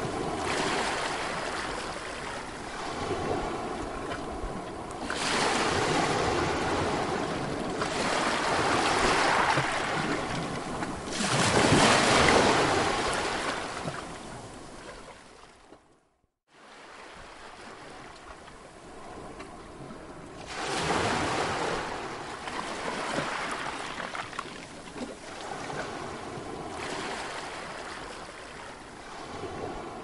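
Ocean waves breaking, the surf swelling and falling away in surges every few seconds, loudest a little before the middle. The sound cuts out briefly about halfway through, then carries on quieter.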